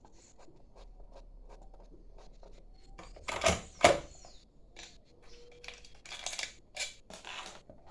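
Brush cutter engine parts and hand tools being handled during disassembly: light clicks and scrapes, two loud clanks about three and a half seconds in, then several short scraping bursts.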